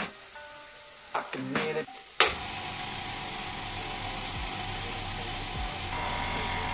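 A few clicks and knocks, then about two seconds in the BTALI 25 L oil-free air compressor's motor starts suddenly and runs steadily with a low hum.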